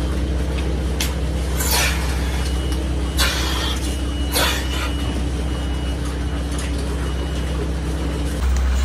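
Milking parlour vacuum system running with a steady low hum, and air hissing into the teat cups as the milking cluster is attached, three short hisses about a second and a half apart.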